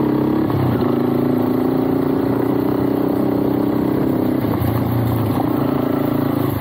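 A motorbike engine running steadily under way. Its pitch steps down less than a second in and shifts again about four and a half seconds in.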